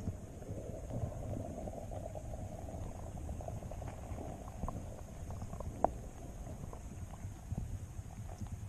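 Underwater ambience picked up by a submerged camera on a sandy lake bed: a steady low rumble with scattered faint clicks and ticks, one sharper tick about six seconds in.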